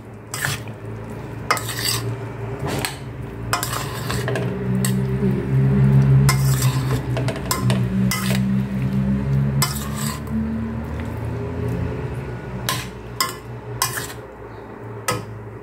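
Dishes, pots and cutlery clinking and knocking against each other in repeated sharp clacks, with a low steady hum through the middle stretch.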